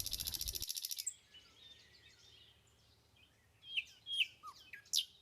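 Wild birds calling. A fast, even, buzzy trill runs through the first second. After a short lull, several short calls sweep downward in pitch near the end.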